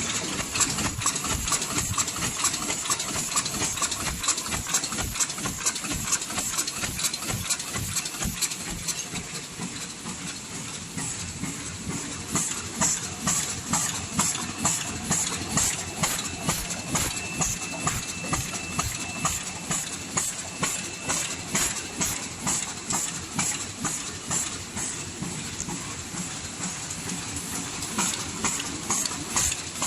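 Paper cup sleeve machine running at production speed, about 130 sleeves a minute. It makes a rhythmic mechanical clatter of about two beats a second over a steady hiss.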